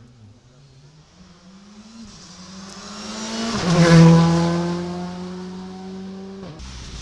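Škoda Fabia R5 rally car's engine revving as it climbs toward and passes close by, loudest about four seconds in, its note dropping sharply as it goes past. The sound cuts off suddenly near the end.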